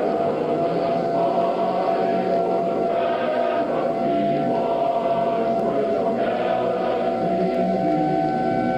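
Choral music: a choir of voices holding long, sustained notes, with a steady held pitch throughout.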